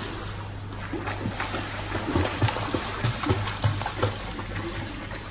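Swimmers splashing as they swim freestyle in a pool: arm strokes and kicks churn the water in a run of irregular splashes.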